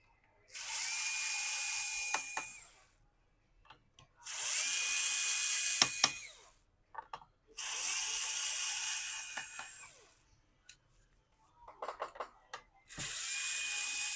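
Small electric screwdriver backing out a laptop's bottom-cover screws. It runs four times, each for about two seconds, with a steady whine, and a few light clicks fall in the pauses between runs.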